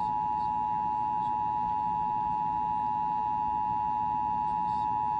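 Emergency Alert System attention signal: the broadcast two-tone alert, 853 and 960 Hz sounded together, held as one loud, unbroken steady tone during an EAS Required Monthly Test.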